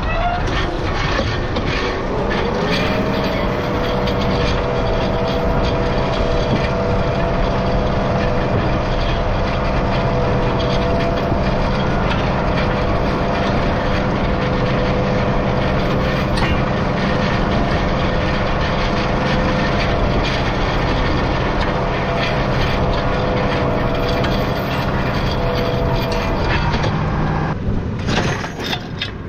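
Tractor running steadily under load, its engine hum joined by a whine that rises about a second in, holds level, and stops near the end.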